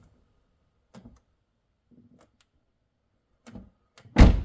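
Subaru BRZ car door being worked, with a few faint clicks and knocks, then shut with one loud thump near the end.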